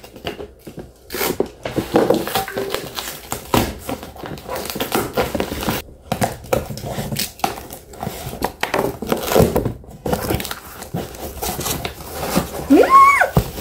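Cardboard box being opened: a utility knife slicing through the packing tape, then the cardboard flaps pulled and torn open, with irregular scraping, tearing and crinkling.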